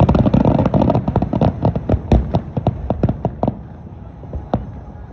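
Fireworks crackling: a dense run of rapid sharp pops over a low rumble, thinning out after about three and a half seconds to a few scattered bangs.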